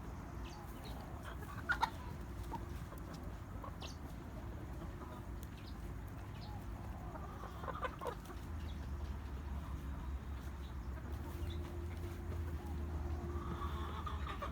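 Chickens clucking, with a few short calls about two seconds in, again around eight seconds, and near the end, over a steady low hum.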